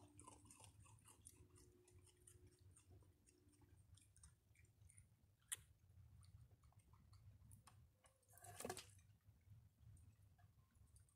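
Raccoons faintly chewing and crunching dry food, with scattered small clicks. There is one sharp click about five and a half seconds in, and a louder scraping rustle about eight and a half seconds in.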